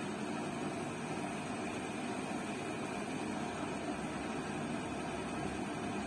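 Zanussi front-loading washing machine running with a steady hum and hiss.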